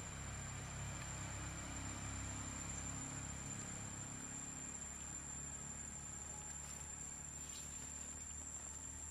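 Outdoor background sound: a steady high-pitched whine over a low rumble that eases off about three and a half seconds in, with a couple of faint clicks near the end.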